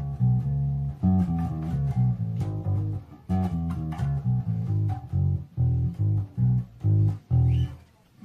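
Vester Precision Bass–style electric bass guitar with a plywood body, played on old strings: a run of plucked low notes, which breaks into separate short notes with gaps about five seconds in, the last one dying away near the end.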